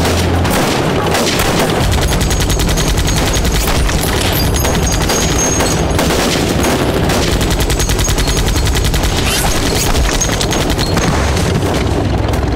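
Battle gunfire: sustained rapid automatic fire mixed with other shots, many reports a second without let-up, over a low rumble.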